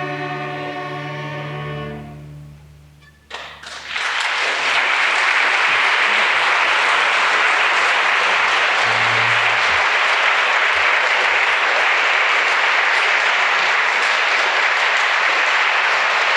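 A school string orchestra holds its final chord, which fades away about three seconds in; then the audience breaks into steady, loud applause.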